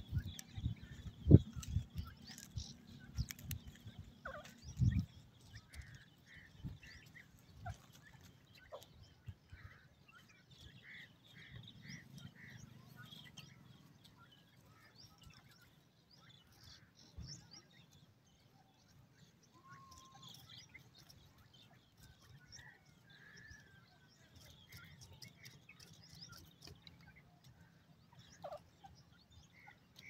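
Francolin (teetar) chicks giving soft, short peeping calls in quick runs of four or five, over a faint steady high tone. A few loud knocks in the first five seconds.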